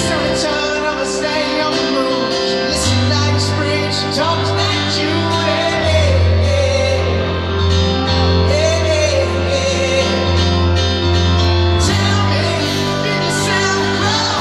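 Live rock band: a male lead singer over piano, electric guitar and drums, with sustained low bass notes underneath, heard as a loud audience recording in a large venue.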